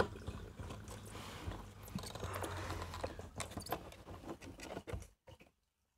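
Light clicks, taps and rustles of a Honda Civic's plastic fuel pump and filter assembly being worked by hand up out of the fuel tank through its access opening. The handling noise stops about five seconds in.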